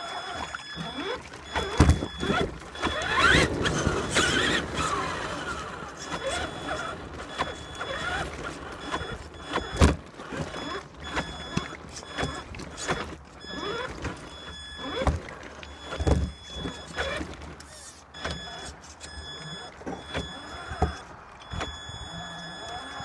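The electric motor of a Traxxas Summit RC monster truck whines, rising and falling as the truck drives through water and mud and over rocks. Splashing runs through it, with frequent sharp knocks from the chassis and tyres.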